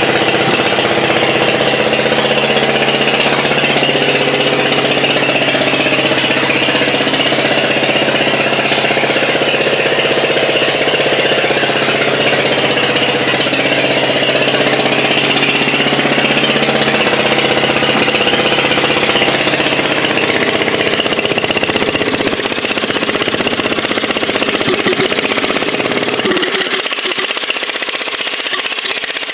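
Onan generator's engine running steadily and loudly, fed by a vacuum-activated fuel pump fitted in place of its failed mechanical pump. Its low end thins out a little near the end.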